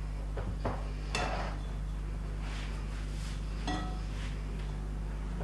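Dough being worked by hand in a mixing bowl: soft scuffs and a few light knocks against the bowl, with one short ringing clink a little after three and a half seconds in, over a steady low hum.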